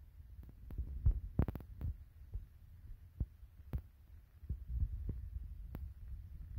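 Handling noise on a handheld phone's microphone: a low rumble with irregular soft knocks and taps, the loudest cluster about a second and a half in.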